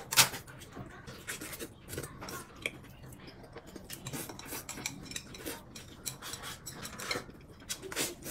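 Eating utensils clicking and scraping against bowls and plates during a meal: many small scattered clicks, with one sharper knock just after the start.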